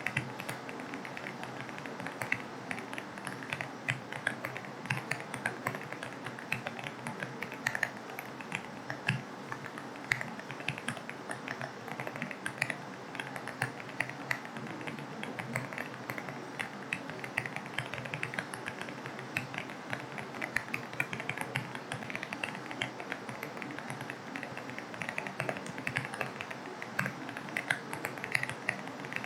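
Continuous typing on an AULA F75 mechanical keyboard with linear switches, a steady run of quick key clicks over a constant hiss of rain.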